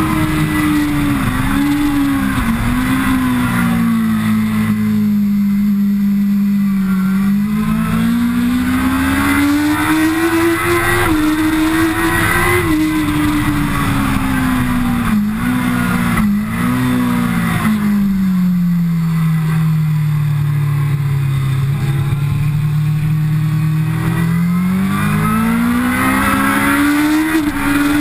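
Kawasaki ZX-10R's inline-four engine at track speed. Its note twice drops in steps, as on downshifts under braking, holds low through a corner, then climbs again under acceleration, over a steady rush of wind noise.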